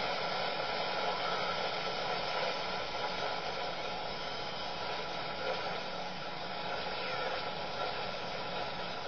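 Steady static hiss from a budget Coby shortwave radio's speaker, the wanted station lost under interference and not coming through.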